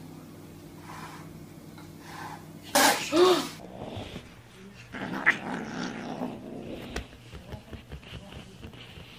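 A domestic cat hisses sharply about three seconds in, with a short rising-and-falling cry in the middle of the hiss. Softer scuffling noises follow.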